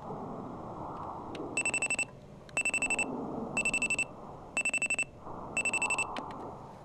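Digital alarm clock beeping: five short bursts of rapid high-pitched beeps, about one burst a second, over a steady low hiss.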